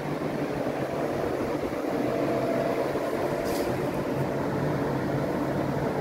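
GREE 1-ton portable air conditioner running: a steady rush of air from its blower over a low hum, with a faint brief tick about three and a half seconds in.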